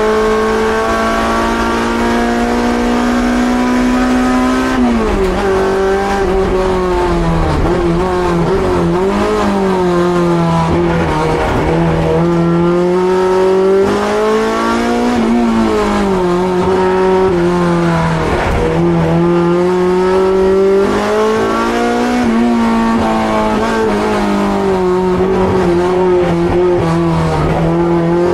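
Honda Civic EG6's B18C inline-four racing engine at high revs under hard driving. It climbs slowly for the first four seconds, drops sharply about five seconds in, then its revs rise and fall again and again.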